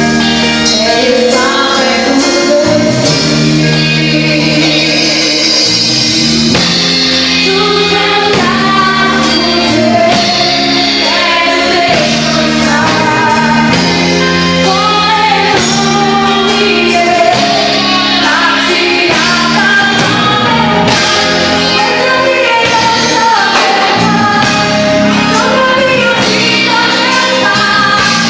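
Live gospel worship band playing, with singing over a steady bass line and full band accompaniment.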